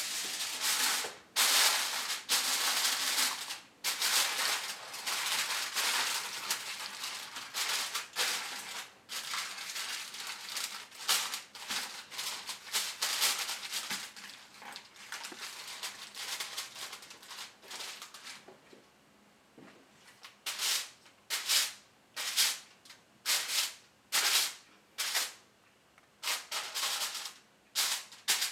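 Aluminium foil crinkling as a sheet is spread and pressed down over a baking pan, then, from about two thirds of the way in, a run of short sharp crackles about once a second as a knife pierces slits in the foil.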